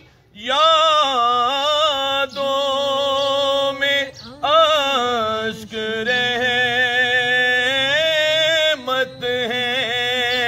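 A man singing an Urdu naat unaccompanied, drawing out long, ornamented held notes with no clear words, with short breaks about 4 and 9 seconds in.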